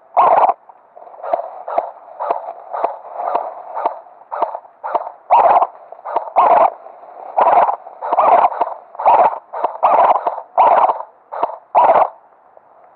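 Airsoft gun firing about twenty shots at an irregular pace, single shots mixed with short bursts, the shooting thickest in the second half.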